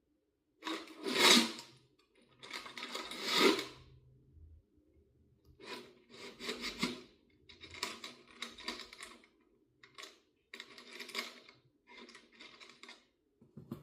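Loose metal screws rattling and clinking as a hand digs through a bucket of screws. This comes as a series of short scrabbling bursts, and the first two are the loudest.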